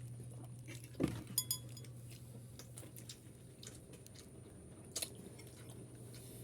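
Eating at a table: sharp knocks and a brief ringing clink of utensils on dishes about a second in, another knock near five seconds, and quiet chewing between them, over a steady low hum.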